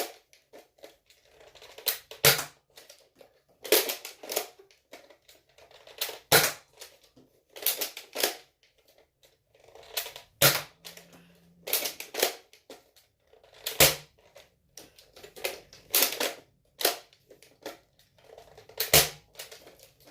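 Spring-powered Nerf dart blaster being primed and fired again and again until it is empty: about a dozen sharp plastic clacks at uneven intervals, with light handling noise between them.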